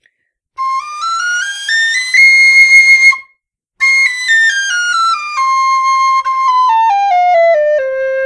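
Killarney nickel tin whistle in C played as a scale: single clear notes step up through the second octave into the third, the top note is held, then after a short breath the notes step all the way back down to the whistle's lowest note. The high notes come out cleanly with little air, showing good back pressure.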